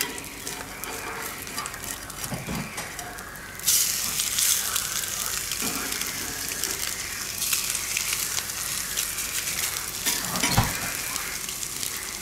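Fried eggs and bacon sizzling on a hot gas griddle plate. The sizzle suddenly gets louder about four seconds in, as the eggs are worked and turned with a metal spatula. A few short scrapes and knocks of the spatula on the plate come through.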